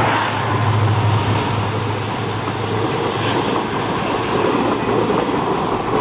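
Diesel passenger train approaching, its WDP4D locomotive running with a steady low engine hum for the first few seconds over continuous rail and wheel noise.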